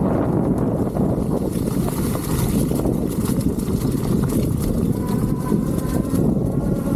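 Steady wind rush and rolling rumble from riding an electric mountain bike, with no breaks and faint scattered ticks.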